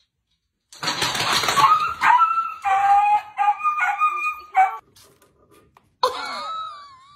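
A dog vocalizing in a run of short, high-pitched yowling and whining calls. The calls start about a second in with a rough, noisy outburst, then break into separate pitched cries before stopping.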